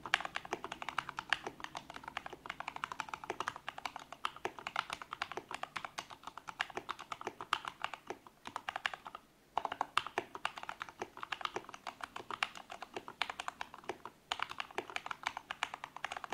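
Typing test on a modded mechanical keyboard with Krytox-lubed Gateron Brown tactile switches, clipped and lubed band-aid-modded stabilizers and PBT keycaps: a steady run of quick keystroke clacks, pausing briefly about a third of the way through and again near the end.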